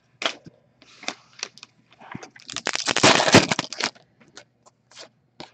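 Foil trading-card pack wrapper crinkling loudly for about a second and a half, in the middle of the stretch. Light clicks and taps of cards being handled come before and after it.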